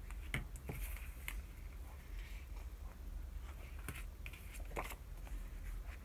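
Clear plastic sticker sheets and paper being handled on a desk: light crinkles and small clicks and taps, a few sharper ones scattered through, over a low steady hum.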